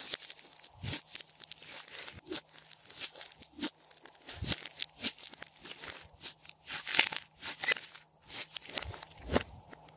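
Hands kneading and pressing glossy slime mixed with foam beads (floam): a dense run of irregular sticky crackles and pops, loudest around seven seconds in.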